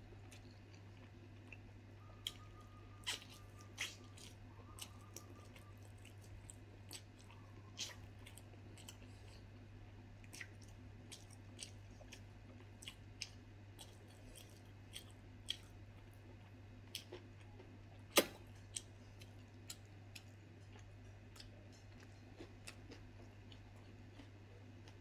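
Close-up mouth sounds of a person eating boiled pork and rice by hand: soft chewing with scattered short clicks and smacks, one louder click about eighteen seconds in. A steady low hum runs underneath.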